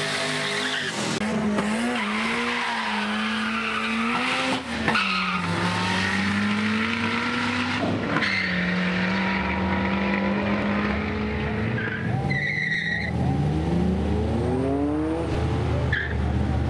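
Drag-racing car engines held at high revs while the rear tyres spin in burnouts, with tyre squeal. Near the end an engine revs up, its pitch climbing steadily.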